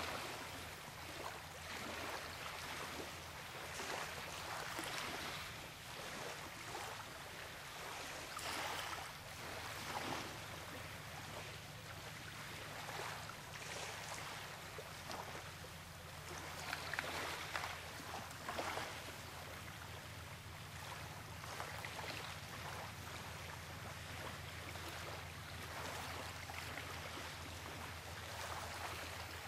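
Outdoor ambience: a steady rushing noise, like running water or wind, over a low steady hum, with brief louder swells every few seconds.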